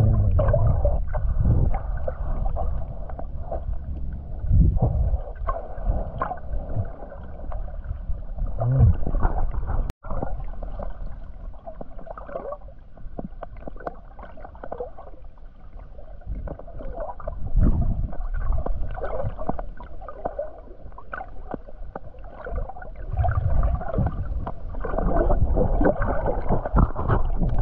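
Muffled water sloshing and gurgling, rising and falling in uneven swells.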